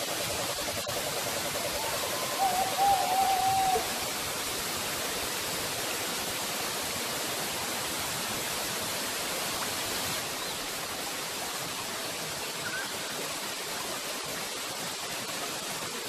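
Waterfall pouring into a pool: a steady rush of falling water. About three seconds in, a brief wavering call rises above it for about a second, and a faint short chirp comes later.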